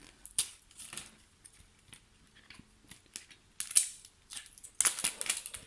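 Wrapping layers of a LOL Surprise ball being torn and crinkled by hand, in a few short bursts with quiet gaps between, the loudest near the end.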